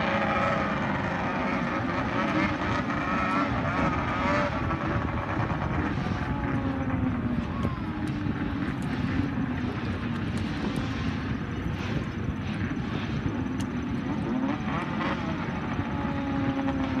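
Snowmobile engines racing across open water, a continuous drone whose pitch slowly rises and falls.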